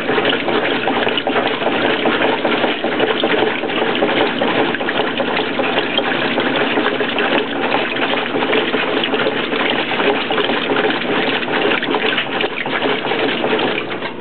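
Water gushing and churning inside a washing machine drum, loud and continuous, easing slightly near the end.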